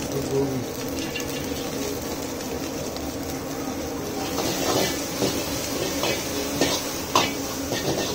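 Chicken and vegetables stir-frying in a large wok with a steady sizzle. From about halfway, the metal ladle scrapes and clanks against the wok as it stirs.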